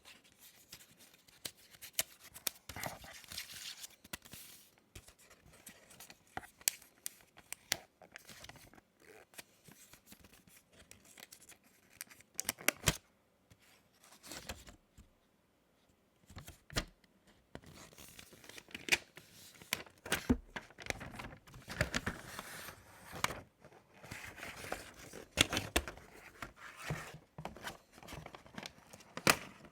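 Box packaging being opened and handled: irregular tearing and rustling of paper and card with scattered light clicks and taps, pausing briefly about halfway.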